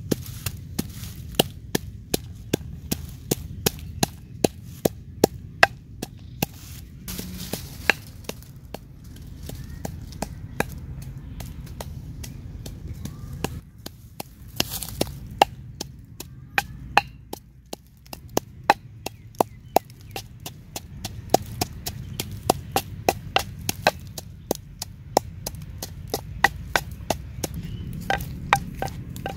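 Wooden pestle pounding red chilies in a wooden mortar: a steady run of sharp wooden knocks, two or three a second, with a couple of short pauses midway.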